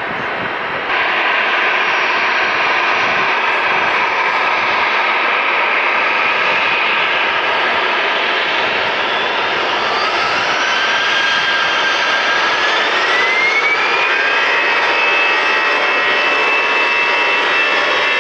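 Jet airliner engines running loud, a steady roar that jumps louder about a second in. About ten seconds in, a whine rises in pitch over a few seconds and then holds high and steady, as the engines spool up.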